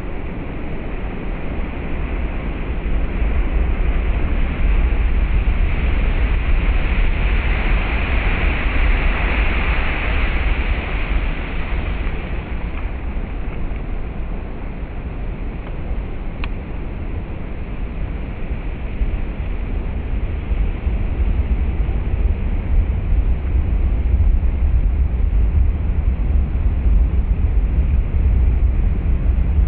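Heavy ocean surf breaking and washing against a rocky shore and breakwater, a steady roar of water over a loud low rumble. One wave's hiss swells up from about six seconds in and dies away about twelve seconds in.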